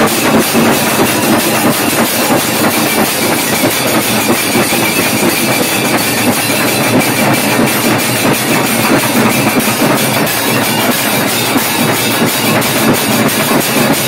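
Kailaya vathiyam percussion ensemble playing loud: many barrel drums beaten with sticks and large brass hand cymbals clashing together in a fast, steady, driving rhythm.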